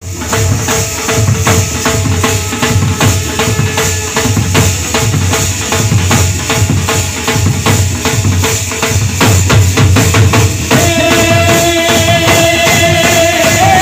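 Bhajan music with a troupe of hand cymbals and a drum beating out a fast, even rhythm, the cymbals jingling over the drum. About eleven seconds in, a held melody line joins above the beat.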